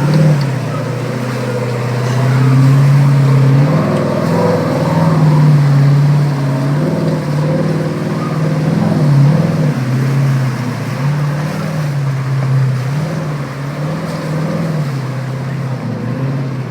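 Off-road vehicle's engine running hard under throttle, its pitch rising and falling again and again.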